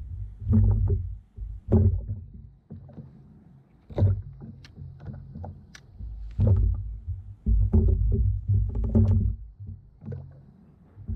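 Irregular low thumps and sharp knocks of gear being handled on a fishing kayak, in bunches with short quiet gaps between.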